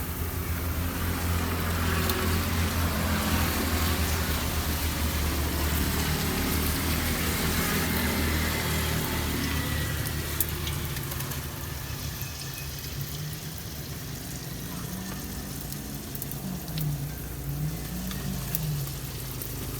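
A motor vehicle engine running close by, a steady low hum that is loudest in the first half and fades after about ten seconds, under a steady hiss.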